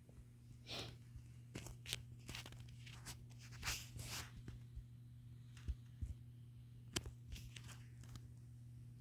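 Faint rustling, scraping and clicking close to the microphone as the recording device is handled and covered, over a steady low electrical hum.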